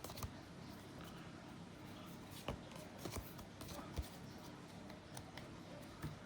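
Trading cards being handled and slid against each other, with a handful of light clicks and taps, the sharpest about two and a half and four seconds in.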